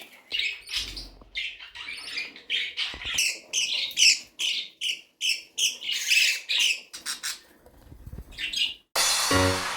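Budgerigars chirping and squawking in a rapid string of short, high calls, with a few low knocks. Music comes in suddenly near the end.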